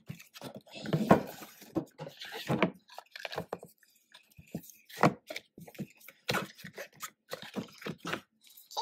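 Cardboard album box being opened and its card and paper inserts handled: irregular rustles, scrapes and light taps of card on card.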